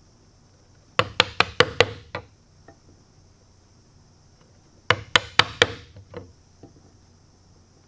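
A wooden mallet strikes a bench chisel to square the rounded corners that the router bit left in CNC-cut shelf pockets. There are two quick runs of about five sharp blows each, about four seconds apart, with a few lighter taps at the end of each run.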